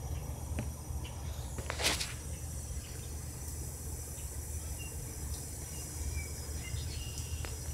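Outdoor ambience: a steady low rumble on the microphone under a high hiss, with a few faint, short bird chirps and one brief rushing burst about two seconds in.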